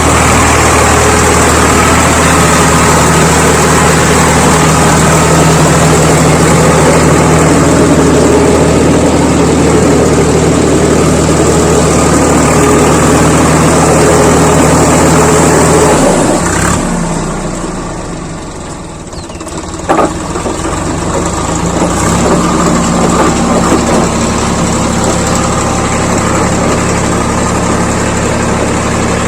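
Diesel tractor engine running steadily. About sixteen seconds in the sound falls away for a few seconds, a single sharp knock comes near twenty seconds, and the steady engine sound comes back.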